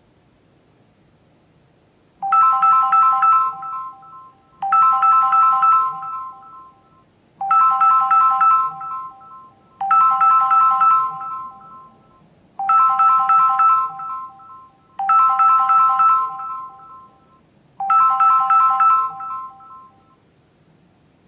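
An electronic ringtone rings seven times, about every two and a half seconds. Each ring is a fast trill on a three-note chord.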